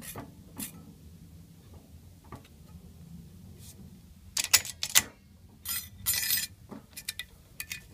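A thin steel rule clicks and clatters against a cast-iron drill press vise and a brass round bar as it comes free from under the tap point. The sharp clicks come about four to five seconds in, a short rattle follows around six seconds, and a few lighter clicks come near the end, over a low steady hum.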